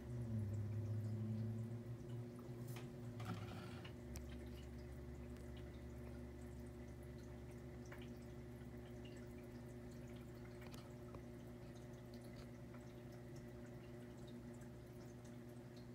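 Aquarium hang-on-back filter running: a steady low motor hum, with water trickling and dripping and a few faint clicks. A louder, wavering low hum in the first two seconds dies away.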